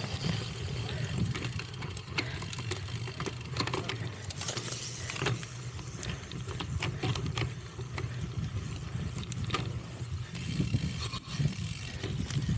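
Cyclocross bike ridden over a rough race course: a steady low rumble of tyres on the ground, with frequent rattling clicks and knocks from the bike.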